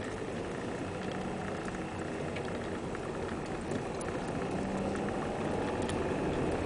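Car engine running at low speed while the car rolls along a rough road, with steady road noise and a few faint ticks, growing a little louder towards the end.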